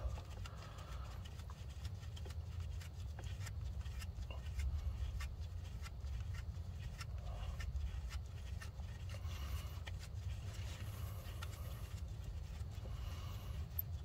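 Faint, scattered little clicks and scrapes of a metal nut or bolt being spun off its thread by hand, over a steady low hum.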